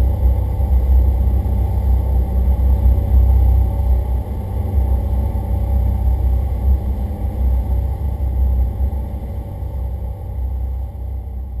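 Boat engine running steadily with a heavy low rumble, getting gradually quieter near the end.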